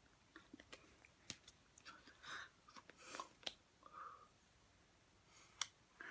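Near silence with faint scattered clicks, rustles and small mouth and breath noises from a person signing, with hands and clothing moving. One sharper click comes about five and a half seconds in.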